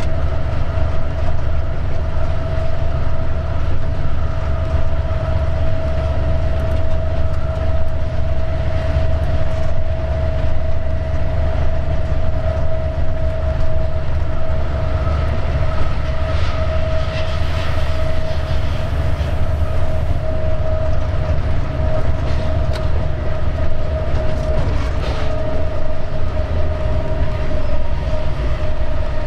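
Diesel locomotive running under way, heard from its cab: a steady low engine rumble with a constant whine above it. A spell of rail clatter over points comes past the middle.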